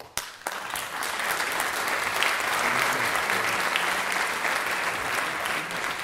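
Audience applauding, breaking out suddenly and building to a steady level within about a second.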